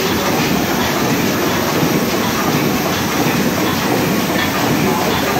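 The 720 hp triple-expansion engine of a steam suction dredger running at a steady pace, a continuous mechanical clatter of rods, valve gear and lubricator with a light regular ticking through it.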